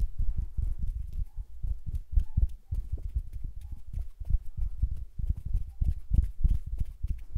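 Hand sounds: fingers fluttering and brushing right at a stereo microphone, making a quick, irregular run of soft, deep thuds, about five or six a second, with small clicks on top.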